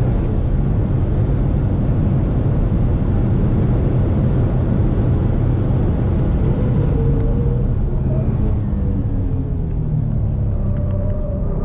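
2018 Subaru WRX STI Type RA's turbocharged 2.5-litre flat-four pulling at full throttle at about 120 mph, buried in heavy wind and road noise. About eight seconds in, the driver lifts off and brakes hard, and the engine note falls as the car slows.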